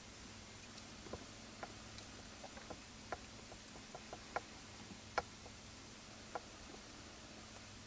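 A steady hiss with a scattered run of faint, irregular clicks and ticks, about a dozen, the sharpest a little after four and five seconds in.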